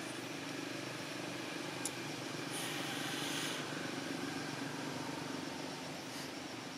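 Low steady hum of a running motor engine over a hissing outdoor background, with a sharp click about two seconds in and a short hiss about three seconds in.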